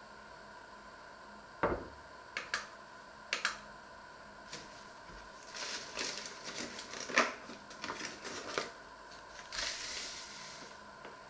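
Kitchen handling sounds: a knife knocked down onto a wooden cutting board, a few light clicks, then a paper bag crackling as it is handled and opened, and near the end a short hiss of a dry ingredient pouring from the bag into a steel mixing bowl.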